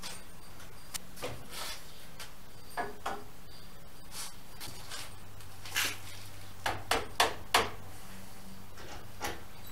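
Scattered light knocks and taps of wood and tools being handled as a wooden roof spar is set in place and a level is laid on it, with a quick run of sharper knocks about seven seconds in.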